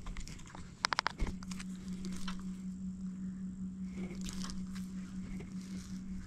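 Spinning reel: a quick run of clicks about a second in, then the steady low whir of the reel being wound on a slow retrieve.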